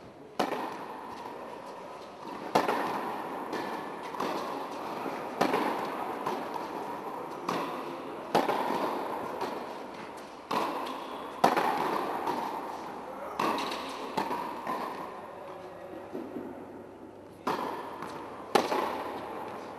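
Tennis rally on an indoor hard court: the ball is struck by rackets and bounces, about a dozen sharp pops, one every one to two seconds, each echoing in the hall.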